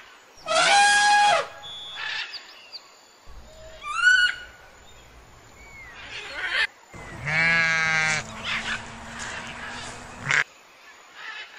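A series of separate animal calls. Near the start comes a loud, brassy elephant trumpet. About four seconds in there is a short call that rises and falls. From about seven seconds comes a long, quavering sheep bleat.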